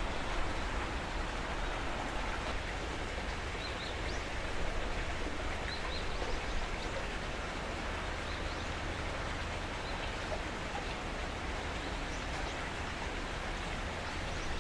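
Steady outdoor ambience: wind rumbling on the microphone under an even hiss, with a few faint, short bird chirps.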